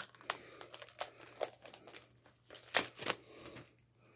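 Foil hockey card pack wrapper crinkling and rustling in the hands as it is torn open, in irregular crackles with a louder crinkle about three seconds in.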